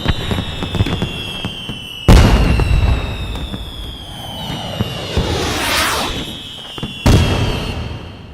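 Fireworks display: a rapid crackle of small pops, then a loud boom about two seconds in with a rumbling tail. A hiss swells and fades in the middle, and a second boom comes near the end, over a faint high whistle slowly falling in pitch.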